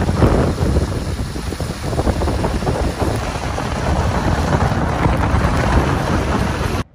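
A car driving on a snow-covered road, heard from inside: a steady rumble of tyre and road noise with some wind, cutting off suddenly near the end.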